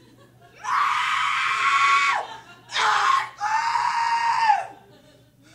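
A woman screams three times, high held screams that drop in pitch as each one ends; the first and last last over a second, the middle one is short.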